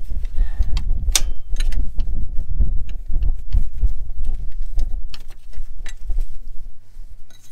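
Hand tools clicking and clinking against metal fittings around a tractor's diesel injection pump, a scatter of short sharp knocks with the loudest about a second in, over a steady low rumble.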